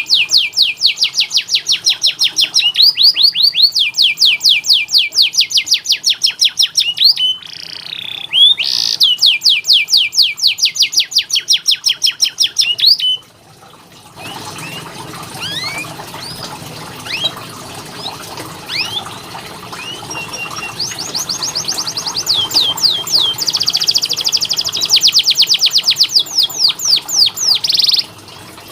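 Domestic canary singing long rolled trills of very rapidly repeated high whistled notes, in phrases broken by short pauses. About halfway through, the song cuts out and resumes over a steady background hiss, first as scattered single chirps and then as fast trills again.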